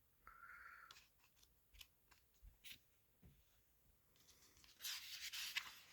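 Faint handling of a paper catalog: light rubs and ticks, then a brief louder paper rustle about five seconds in.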